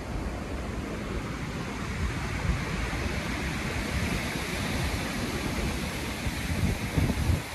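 Wind buffeting the microphone in uneven gusts over a steady rushing noise, which swells slightly midway through.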